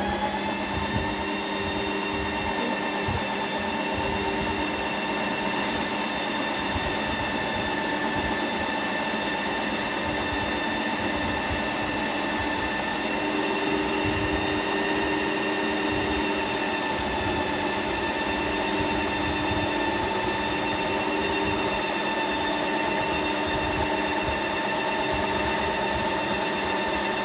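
Ninja Creami ice cream maker's motor spinning its blade down through a frozen pint on the sorbet program: a steady high whine over a low rumble.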